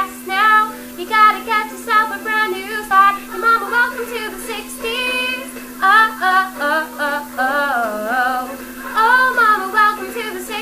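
A young woman singing a show tune solo, in sustained melodic phrases with a steady low hum underneath.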